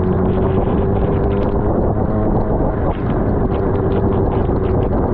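Suzuki GSX-R600 inline-four engine running at a steady low speed, under a rushing noise of wind and water spray off the wet road. The engine note briefly dips about three seconds in.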